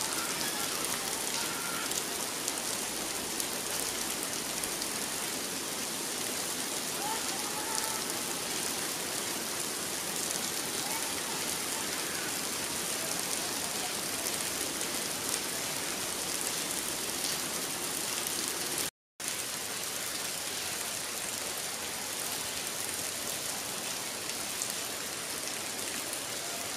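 Steady heavy rain falling. The sound cuts out for a moment about two-thirds of the way through.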